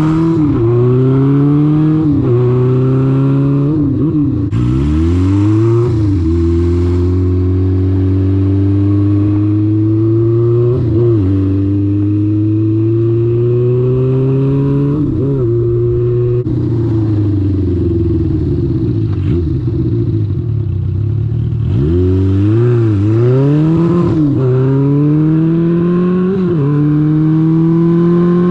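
1978 Honda CB550's air-cooled inline-four engine running under way, its pitch climbing slowly and then dipping sharply and recovering several times as the throttle or gears change.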